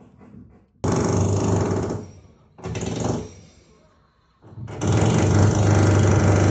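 Renovation work upstairs: a power drill running in bursts. One burst of about a second, a shorter one, then a longer one of two to three seconds, each starting and stopping abruptly.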